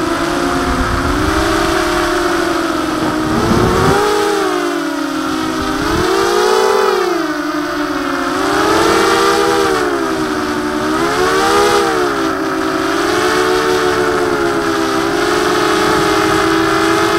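Mini-H quadcopter's electric motors and HQ 5x4 two-blade propellers whining in flight, several close tones rising and falling together as the throttle changes, heard from the camera on board. Wind rumble on the microphone in the first few seconds.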